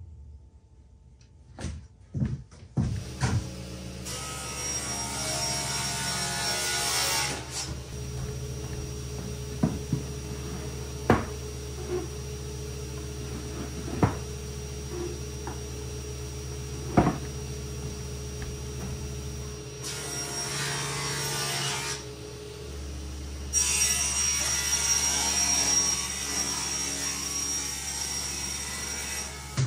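Plywood cabinet panels being handled and shifted, with a few sharp wooden knocks, over a steady machine hum and a hiss that comes and goes.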